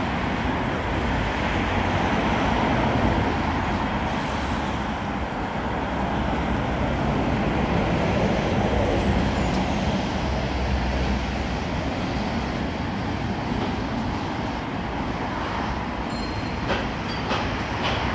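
Steady city street noise: a continuous rumble of road traffic, with a few faint clicks near the end.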